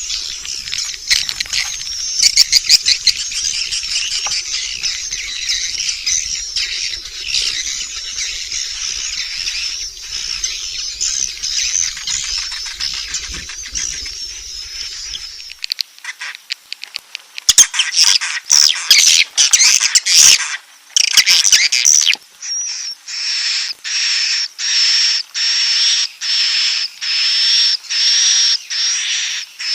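Swiftlet roosting (inap) call track of the kind played to draw swiftlets into a nesting house: a dense, high twittering chorus, then from about two-thirds in, one high call repeated evenly, about one and a half times a second.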